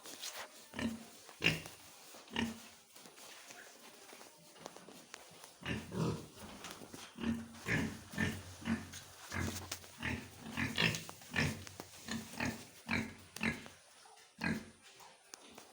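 Pigs grunting in many short, separate calls, a few at first and then close together and more often from about six seconds in.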